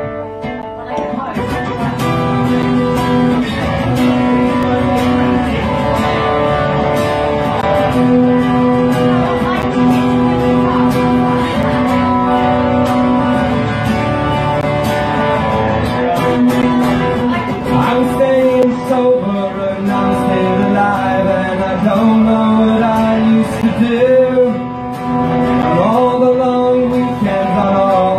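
Live band music: an acoustic guitar strummed, with a man singing over it.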